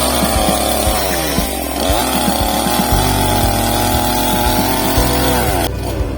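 Ibell chainsaw running hard, its revs dipping and recovering, then held high for a few seconds before falling away and cutting off near the end.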